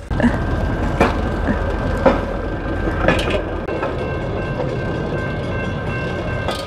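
Rail kart's steel wheels rolling along the rails: a steady rumble with a sharp click about once a second as the wheels cross the rail joints. A steady high tone joins about four seconds in.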